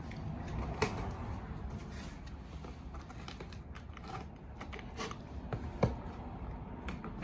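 Utility knife slicing packing tape on a cardboard box, with scattered scratches, clicks and taps of hands on the cardboard.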